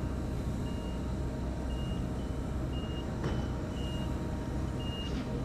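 Steady low engine rumble, with a short, high electronic beep repeating every half second to a second, like a vehicle's reversing alarm.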